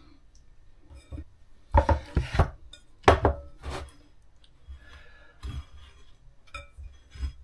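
A glass pie dish and a wooden chopping board being set down and shifted on a worktop: a run of knocks and glassy clinks, a cluster about two seconds in and the loudest about three seconds in, with lighter taps after.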